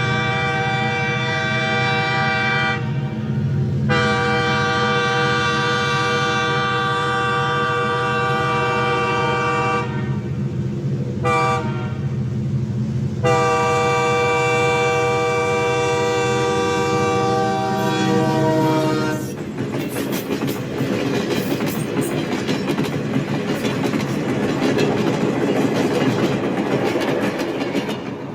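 Locomotive air horn sounding a long, long, short, long pattern, the standard signal for a level crossing, over a low diesel engine rumble. After the last long blast fades, about two-thirds of the way in, the train passes with a dense clattering of wheels over the rail joints.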